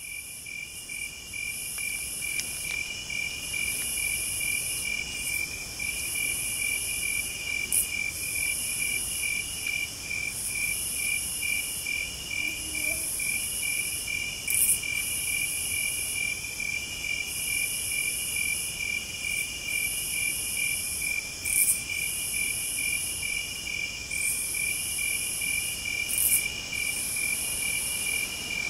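Night insects singing: one keeps up a steady, rapid pulsed chirp while a higher, buzzing trill comes in bursts of a second or two with short gaps. A few brief clicks stand out.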